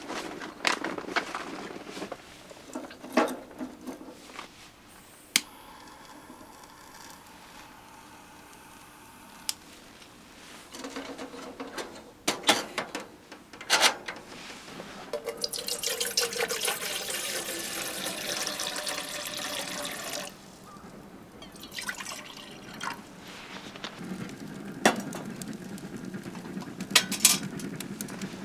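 Water running for about five seconds in the middle and then cut off suddenly, among scattered clicks and knocks.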